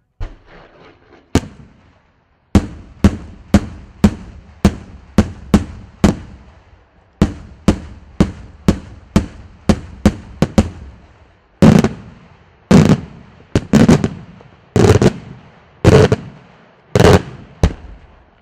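Daytime aerial fireworks shells bursting in the sky as a fast string of sharp bangs, about two a second. About twelve seconds in they give way to heavier, louder booms with longer echoing tails, about one a second.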